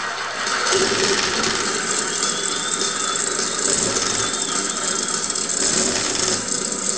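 Recorded stock-car engines firing up about a second in and then running together, a dense, rattly engine noise with low rumbles swelling twice, played back as a race sound effect after the start-your-engines command.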